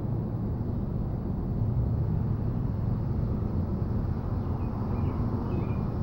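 Steady low outdoor rumble, with a few faint short chirps about five seconds in.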